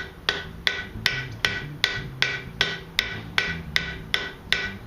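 Hand hammer striking hot iron on an anvil in a steady rhythm, about two and a half blows a second. Each blow is followed by a short metallic ring as the stock is forged down to form the narrow neck of a fork.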